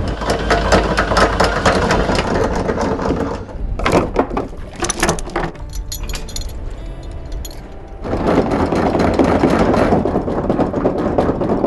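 Electric anchor windlass hauling in the anchor chain, the chain clattering and clanking. The clatter is loudest at the start and again in the last few seconds, with scattered knocks and a quieter spell between.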